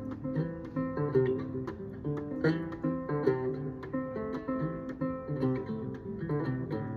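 Banjo being played: a continuous run of quick plucked notes.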